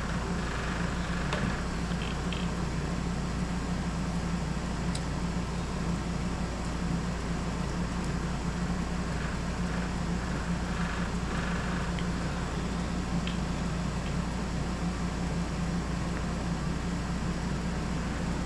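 Window air conditioner running with a steady hum and fan noise, with a few faint clicks from eating at the table.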